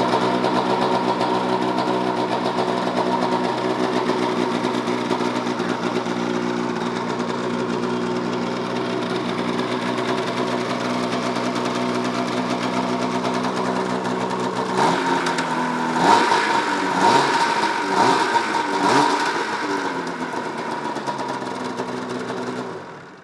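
Two-stroke twin-cylinder engine of a 2005 Polaris RMK 900 CFI snowmobile, fitted with an aftermarket exhaust can, idling steadily. About fifteen seconds in it is blipped four or five times, each rev rising and falling quickly, then it settles back and falls silent just before the end.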